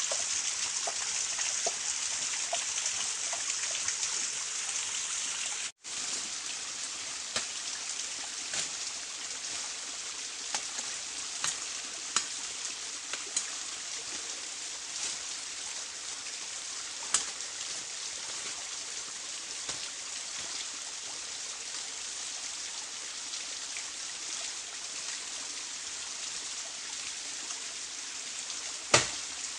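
Small stream running steadily, with scattered light clicks and taps over it, and a few louder knocks near the end.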